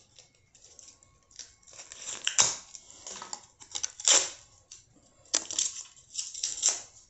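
A lip balm's packaging crinkling and snapping as it is worked open by hand, in irregular bursts with a couple of sharp clicks.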